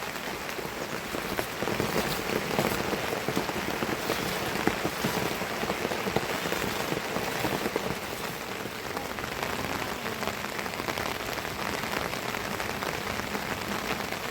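Steady rain falling, with many individual drops ticking through a constant hiss.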